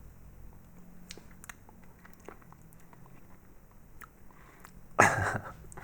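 Chewing a sugar-crusted, jelly-filled marshmallow, with small crunching clicks from its crispy sugar coating. A brief loud noise about five seconds in.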